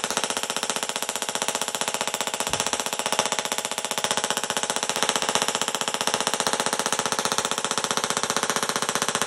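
Small handheld Tesla coil firing continuously. Its sparks make a steady, rapidly pulsing electric buzz.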